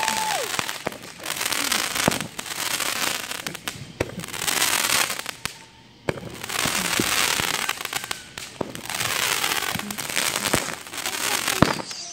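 A consumer firework cake firing shot after shot: each shot starts with a sharp pop and goes on as a hissing, crackling spark trail of about a second, about seven in a row.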